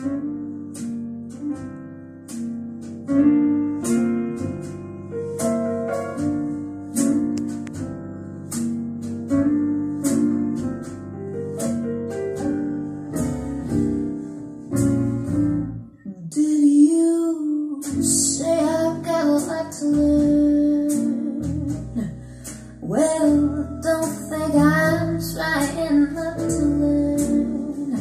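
Recorded music playing through a Yamaha AX-500 amplifier and a pair of floor-standing loudspeakers in a room. It opens with picked acoustic guitar, and a singing voice comes in over the accompaniment about halfway through.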